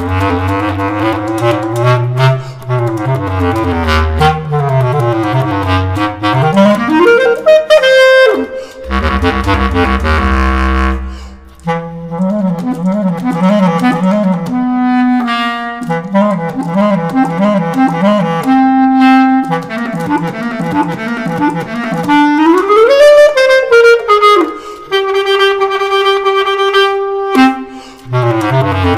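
Bass clarinet playing a fast choro melody, with quick runs sweeping up and down through low and high notes, brief breaths, and a long held high note near the end.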